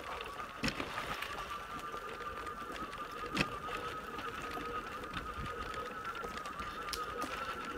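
Electric wheelchair trike's drive motor whining steadily at one pitch while riding over a gravel track, with a few sharp knocks, the loudest about three and a half seconds in.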